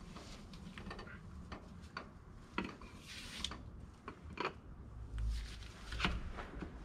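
Scattered light clicks, clinks and knocks of tools and metal engine parts being handled during work on a Detroit 6-71 diesel's pistons and liners.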